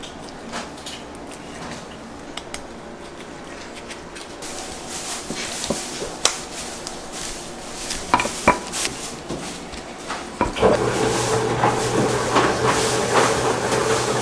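Scattered clinks and knocks of kitchen utensils and containers being handled during yakgwa making. About ten and a half seconds in, a steady hum starts and continues under the clatter.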